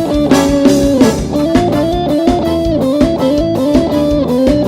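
Forró band playing live: an electric guitar plays a stepping melodic solo line over bass guitar and a steady drum beat.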